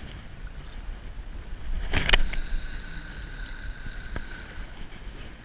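Wind buffeting the microphone throughout. About two seconds in, a sharp click from the conventional fishing reel is followed by a steady high whine from it for about two seconds.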